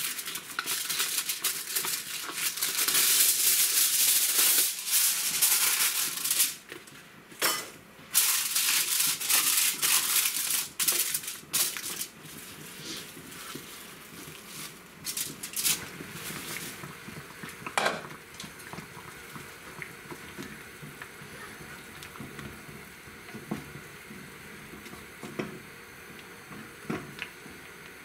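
Aluminium foil crinkling and rustling loudly as it is torn off and pressed into a frying pan, with many sharp crackles over roughly the first twelve seconds. After that come quieter kitchen handling noises with scattered clicks and taps.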